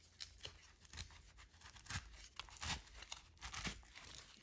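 Faint rustling and scraping of a full-size Glock magazine being worked into a tight elastic nylon pistol-magazine pouch, with scattered soft clicks. The fit is slow going because the pouch has no stiffeners.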